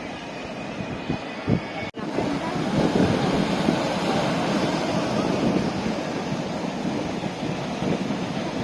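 Ocean surf washing onto the shore, a steady rushing noise that swells about two seconds in, with wind buffeting the microphone in low gusts. The sound drops out for an instant just before the swell.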